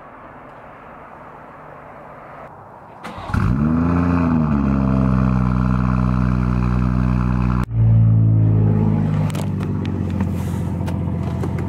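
A BMW sedan's engine starting about three seconds in: the revs flare up and drop back, then it settles into a steady idle. Near two-thirds of the way through, the sound cuts off abruptly and picks up again on a steady engine idle.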